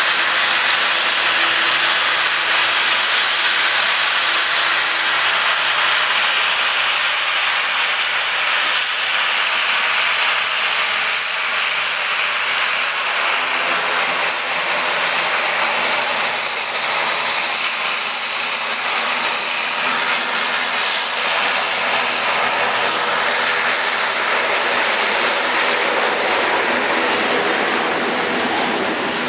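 Boeing 787-8 Dreamliner's GEnx turbofan engines running at taxi power: a steady, loud jet hiss with a faint high whine.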